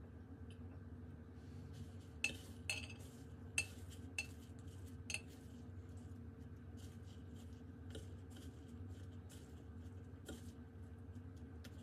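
Metal fork clinking against the dishes while a fish croquette is breaded: a handful of sharp clinks between about two and five seconds in, then fainter light taps and scrapes in the breadcrumbs, over a faint steady hum.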